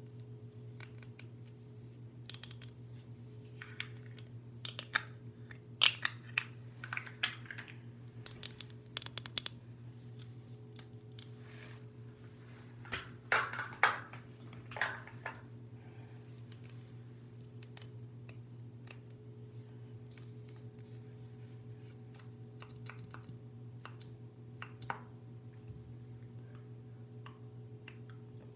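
Fingernails tapping and scratching on small plastic makeup containers, in irregular clicks and taps that come in clusters, loudest about halfway through. A steady low hum runs underneath.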